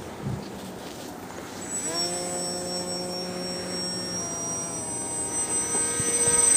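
Electric brushless motor and propeller of a small radio-controlled delta-wing plane whining in flight. The whine comes in with a short upward swing in pitch about two seconds in, then holds steady and grows louder as the plane comes closer.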